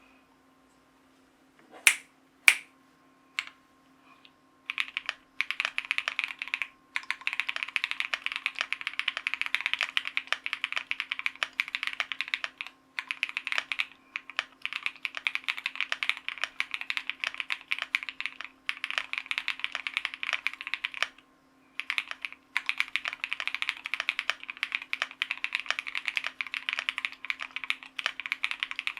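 Typing on a Meow65 mechanical keyboard with Cobalt Pom switches lubed with Krytox 205g0, in a polycarbonate plate with Cherry-profile keycaps. A few separate louder key clicks come about two seconds in, then long runs of fast typing from about five seconds in, broken by a few short pauses. A faint steady hum sits underneath.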